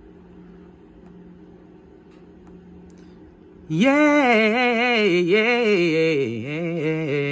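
Faint low steady hum, then about three and a half seconds in a woman starts singing a wordless phrase, her pitch wavering and sliding slowly downward.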